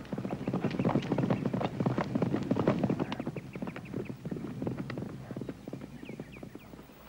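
A horse galloping on a dirt trail, a rapid run of hoofbeats that builds and then fades away.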